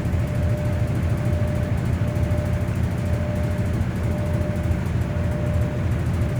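Hoover 800RL top-loading washing machine spinning at full speed, about 750 to 800 rpm by the owner's estimate: a steady low rumble with a thin, steady whine on one pitch.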